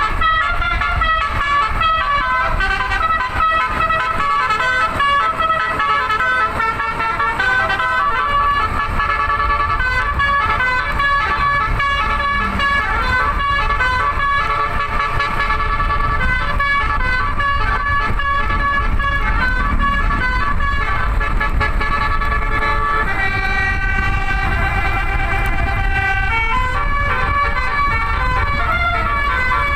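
Multi-tone 'telolet basuri' bus horn playing a melody: quick stepped notes, moving to longer held notes in the last several seconds, over a steady low rumble.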